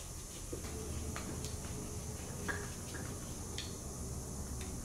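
Light scattered clicks and taps of a screwdriver and small metal carburetor parts as a new priming pump is fitted and screwed on, over a steady low background hum.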